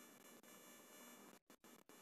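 Near silence: a faint steady hiss that cuts out briefly a few times near the end.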